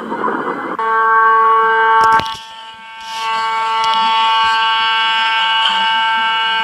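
A steady, unwavering alarm-like tone, like a horn or buzzer, starts about a second in. It cuts out briefly with a few clicks a little after two seconds, then comes back and holds steady.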